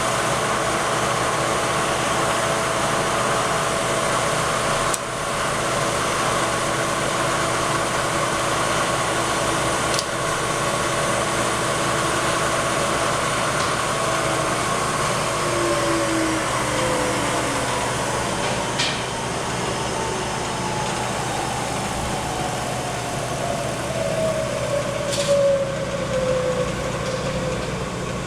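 Bridgeport vertical milling machine's 1-1/2 HP motor and variable-speed spindle running steadily, with several tones that slide slowly lower in pitch through the second half as the spindle speed is turned down. A few sharp clicks break in now and then.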